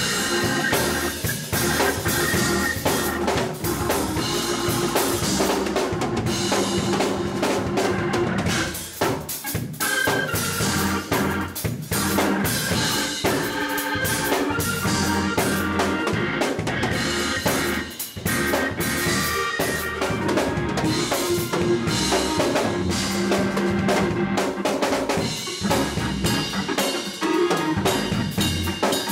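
A Hammond organ and drum kit playing live together: sustained organ chords and runs over a busy drum groove with cymbals. The music drops back briefly twice, about nine and eighteen seconds in.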